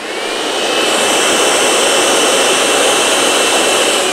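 Handheld electric air blower running, blowing air through a funnel: its motor whine rises in pitch over the first second as it comes up to speed, then holds steady over a loud rush of air.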